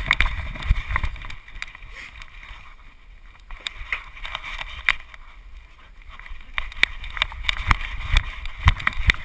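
Knocking, clicking and rubbing picked up by a GoPro strapped to a running dog: the camera and its mount jostle and bump with every stride, over a low rumble.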